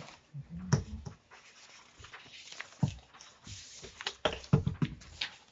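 Sheets of paper being handled and leafed through, rustling, with a few sharp clicks and knocks on the table.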